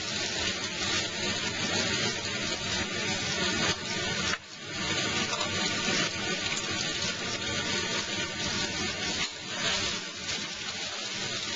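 Eggplant and garlic sizzling as they fry in oil in a pan: a steady hiss, with a brief drop about four seconds in.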